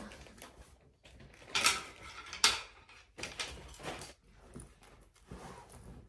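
Rustling and handling noises of clothes being packed into a travel bag, in irregular bursts, the sharpest about two seconds in.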